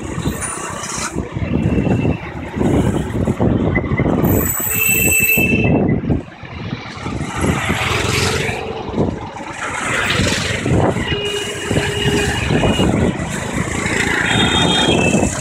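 Busy city road traffic heard from a moving cycle rickshaw: a continuous rumble of engines and tyres. Short vehicle horn toots sound a few times, about five seconds in, around twelve seconds and near the end.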